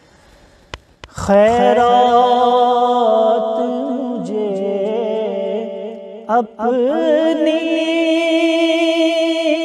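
A man singing an Urdu naat unaccompanied, holding long, wavering melismatic notes. The singing begins after about a second of quiet with a single click, and breaks off briefly for a breath about six seconds in.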